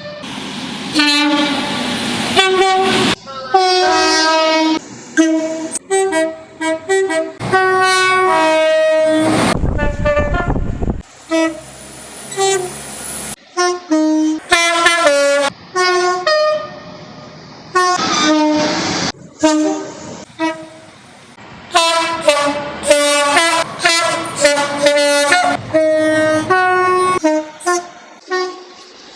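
Train horns sounded one after another in short and longer blasts, two- and three-note tones. About nine seconds in, a loud rush of noise lasts about two seconds.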